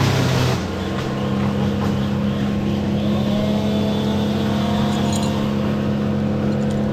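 An engine running steadily at an even pitch, with a brief louder burst of noise at the start.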